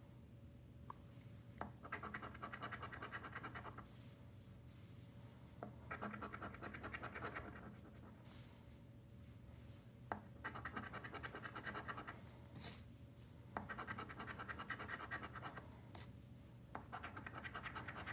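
Massachusetts Lottery instant scratch-off ticket being scratched, in short spells of rapid scraping strokes with pauses and a few light clicks between them.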